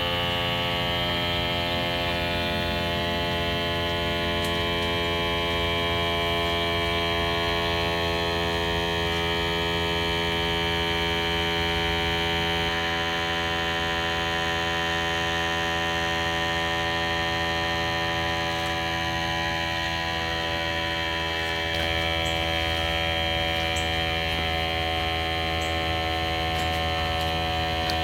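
Battery-operated pump sprayer's small electric pump motor running steadily, building pressure in the tank of a home-made gear oil changer. It makes a constant buzzing hum.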